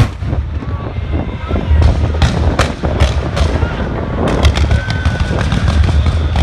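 Fireworks display going off: a quick series of sharp bangs and crackles, one after another, over a steady low rumble.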